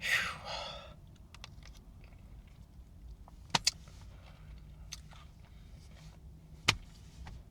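A man eating a Blizzard of soft-serve with crunchy Oreo cookie pieces: a short breathy burst at the start, then quiet chewing with two sharp clicks close together about three and a half seconds in and another near the end.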